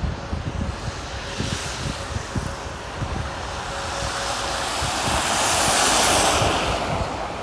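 Wind buffeting the microphone, with a passing vehicle's hiss swelling over a few seconds from about halfway through and fading near the end.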